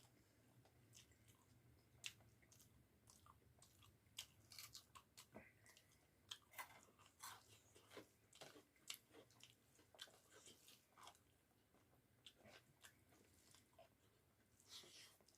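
Faint close-up chewing and biting: wet mouth clicks and occasional crunches at an irregular pace as a person eats rice with bamboo-shoot and potato curry.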